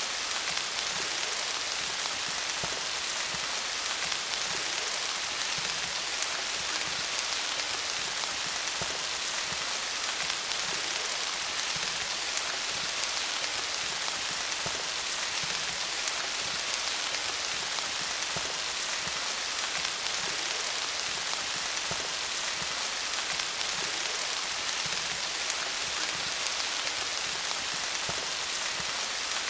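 Steady rain falling on leaves, a dense even patter of many small drops.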